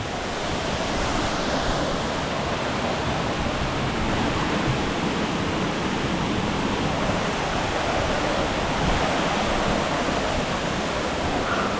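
Waterfall rushing, a steady roar of falling water.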